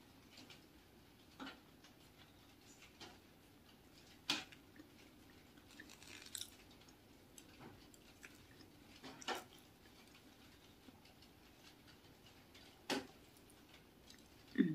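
Quiet chewing of a crusty sweet bun, with a handful of sharp crackles and clicks spread a few seconds apart as the crumbly crust is broken and eaten. A short falling vocal sound, the loudest moment, comes at the very end.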